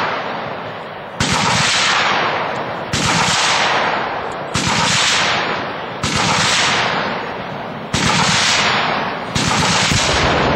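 A .30-calibre machine gun firing six short bursts, one about every second and a half, each followed by a long fading echo.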